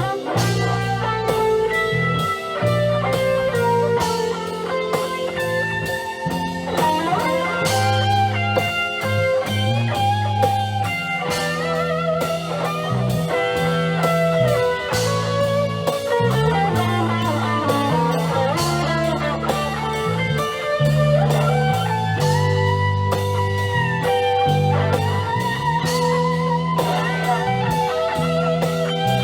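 Live rock band playing an instrumental passage: an electric guitar lead with bending notes over bass and drums.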